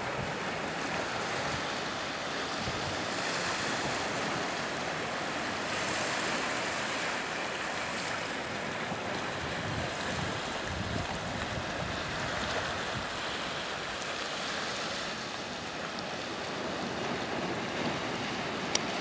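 Small sea waves washing and lapping among exposed rocks at low tide, a steady hiss of surf, with wind gusting on the microphone. A single sharp click near the end.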